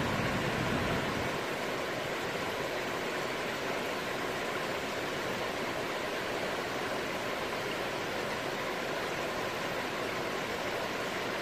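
Shallow river water rushing steadily over rocks and gravel in a riffle, with a low rumble that drops away about a second in.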